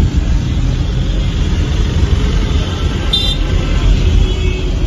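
Road noise inside a moving car's cabin: a steady low rumble of engine and tyres, with a brief high-pitched tone about three seconds in.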